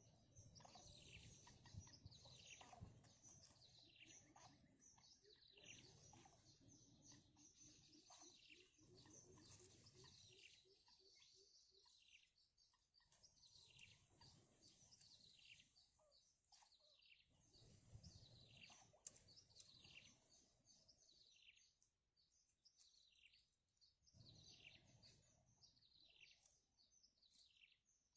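Faint, quick, high chirps from small birds, repeated many times over with short gaps, and a few dull low rumbles in between.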